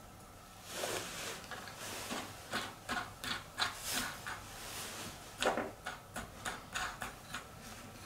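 Green 3D-printed plastic star knob being handled and turned down a threaded steel bolt: a quick, irregular run of short scrapes and clicks that starts about a second in.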